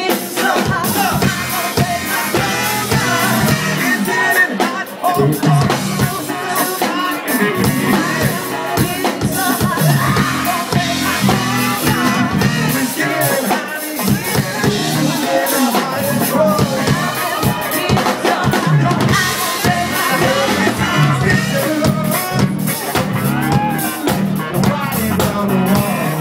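A live band playing loud dance music: a drum kit keeping a steady beat under bass and electric guitar, with a male singer's vocals over the top.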